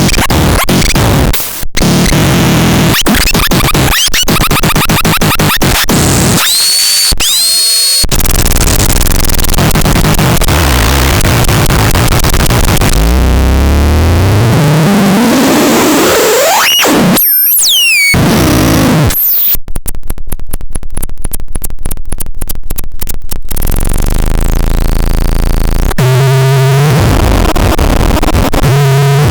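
Melulaite 5 electronic noise box making harsh, distorted synth noise: crackling static, rising and falling pitch sweeps and high whistling glides, a run of rapid stuttering pulses about two-thirds of the way through, and stepped buzzing tones near the end.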